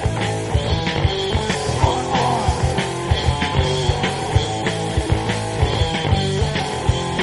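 Punk rock band playing live, with electric guitar, bass and drums keeping a steady driving beat.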